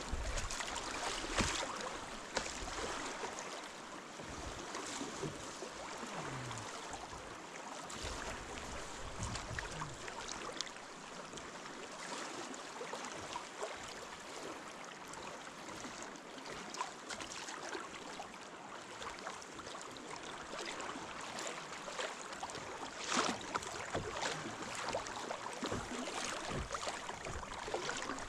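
Moving river water: a steady rushing hiss, with a few short sharp splashes or knocks, the strongest about 23 seconds in.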